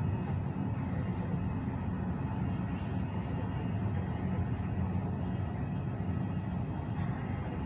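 Steady low rumble of airport apron noise, with no distinct events.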